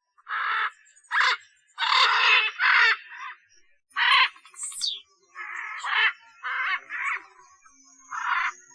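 Macaw squawking: a run of about nine harsh, raspy screeches, some in quick pairs. Near the middle comes one thinner, high call that falls in pitch.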